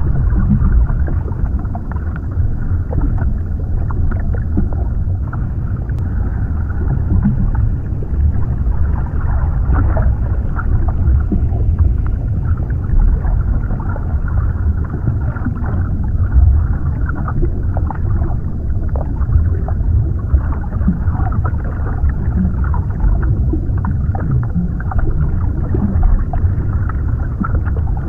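Underwater ambience: a steady, muffled low rumble of water as heard below the surface, with scattered faint crackles and clicks.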